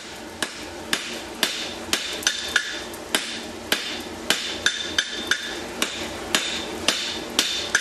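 Hand hammer striking a red-hot steel tong blank on an anvil, about two blows a second, forging the jaw flat. A high ringing tone from the anvil hangs on between blows.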